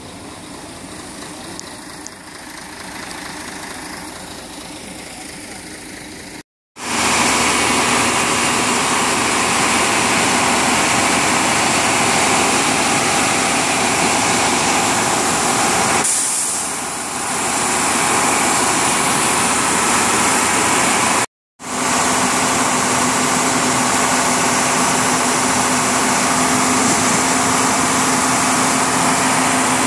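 A heavy vehicle engine running steadily and loudly, close by. The first few seconds are quieter, and the sound cuts out briefly twice.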